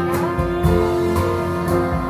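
Recorded music with plucked guitar notes, played back through hi-fi loudspeakers in a demo room.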